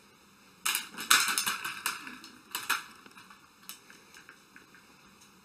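Small toy helicopter clattering as a cat bats at it: a quick run of plastic clicks and knocks starting about half a second in and lasting about two seconds, then a few scattered ticks.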